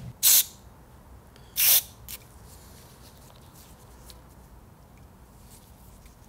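Two short blasts of compressed air from an air blow gun, blowing out a Dellorto carburettor jet to clear it, the second about a second after the first and followed by a light click.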